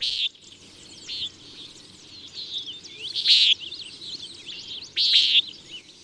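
Common nighthawk giving its urgent, nasal 'peent' call four times, a second or two apart, with faint chirps behind.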